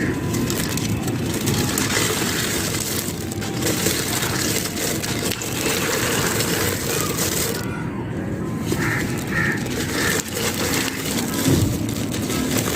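Dried sand-cement chunks being crushed into crumbles: a dense, continuous crunching and crackling, with one louder crunch near the end.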